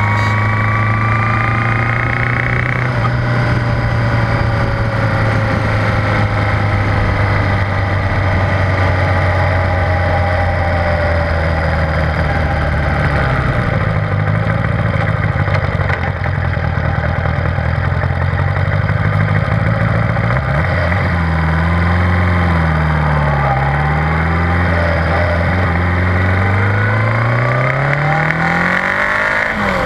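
1978 Honda GoldWing's flat-four engine running at road speed over wind and road noise, steady at first, then its pitch dipping and rising several times in the last third as the throttle is eased off and opened again.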